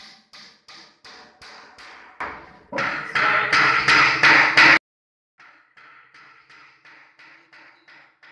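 Background music with a steady tapping beat, about three beats a second. It swells loud for about two seconds in the middle, cuts off suddenly, then comes back softer.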